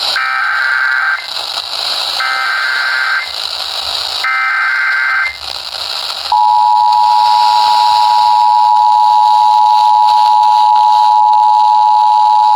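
Emergency Alert System SAME header: three short bursts of warbling data tones, about a second each, followed about six seconds in by the steady two-tone EAS attention signal, all over radio hiss. It marks the start of a new severe thunderstorm warning broadcast.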